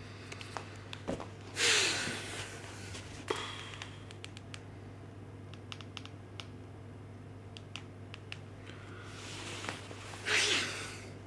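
Quiet room with a steady low hum, a man breathing audibly twice, about two seconds in and near the end, and a scattering of small clicks in between from mobile phone keys being pressed.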